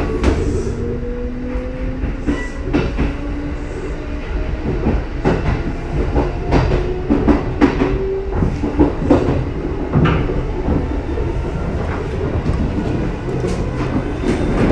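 Ten-car Kintetsu electric train of 8600, 8810 and 1252 series cars running through a station: a steady rumble with wheels clicking over rail joints again and again, and a faint motor tone that rises slightly, then holds and stops about eight seconds in.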